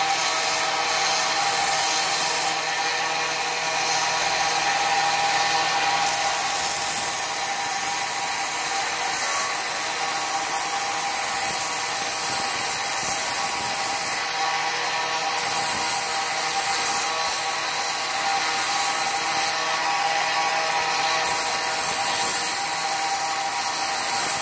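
Electric belt grinder running, its sanding belt grinding a wooden knife handle pressed against it: a steady motor-and-belt whir with the hiss of abrasive on wood, which grows louder for a few seconds at a time as the piece is pressed in.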